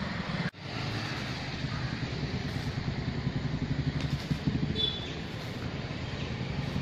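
A steady low machine hum, like a motor or engine running, that cuts out for an instant about half a second in.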